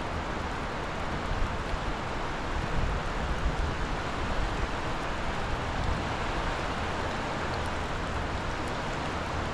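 Steady rushing noise of a flooded river running high, with an uneven low rumble beneath it.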